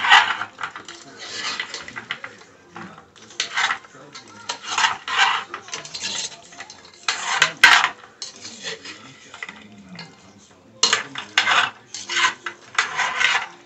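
A spoon scraping and clinking against the inside of a cooking pot as okra is stirred, in irregular strokes with short pauses between them.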